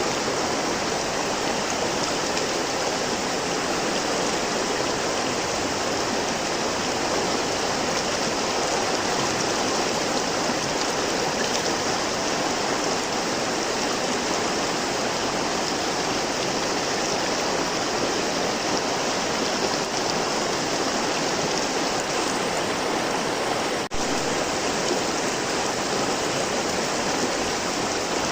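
River water flowing, a steady, even rushing, broken by a momentary dropout near the end.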